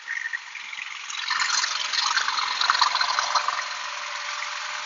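Truck-mounted carpet-cleaning extraction unit running, its vacuum hose giving a steady hiss over a faint hum, louder from about a second in until about three and a half seconds.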